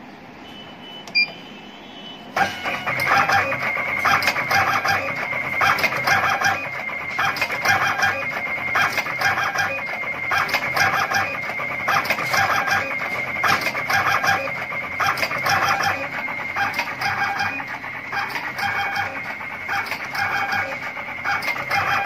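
An automatic wire cutting, stripping and twisting machine: a short beep from its control panel as a key is pressed, then, about two seconds in, the machine starts and runs its cutting, stripping and twisting cycle over and over in a steady rhythm, with a motor whine at each stroke.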